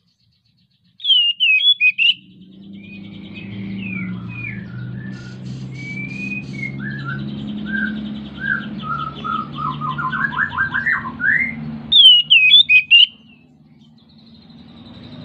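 Oriental magpie-robin singing the full song of a bird in breeding condition: a burst of loud, sharp whistled notes about a second in and again about twelve seconds in, with a softer, varied run of chirps and warbles between. A low hum runs underneath.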